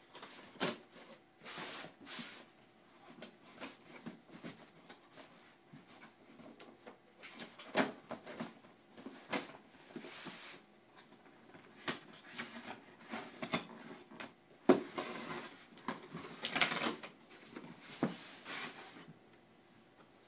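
A shipping package being unpacked by hand: irregular rustling and crinkling of packaging with scattered clicks and knocks, the sharpest about eight and fifteen seconds in.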